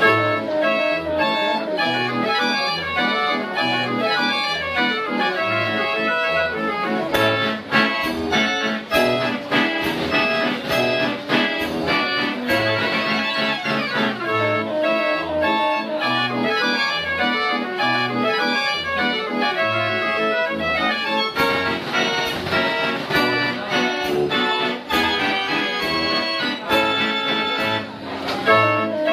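Ruth model 33 fair organ playing a tune: pipe melody and chords over a regular bass line, with drum strokes keeping the beat.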